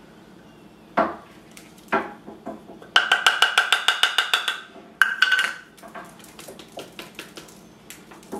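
An electric coffee grinder's cup is knocked and tapped to shake out freshly ground sunflower-seed flour. There are single knocks about one and two seconds in, then a quick run of ringing taps, about eight a second, lasting a second and a half. A sharper knock follows about five seconds in, then light ticks and scraping as the flour is emptied into a glass bowl.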